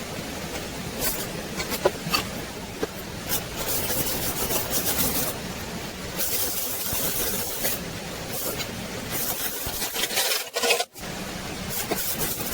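Sped-up workshop metalworking noise: rasping, scraping hisses and scattered sharp clicks, changing abruptly from one stretch to the next.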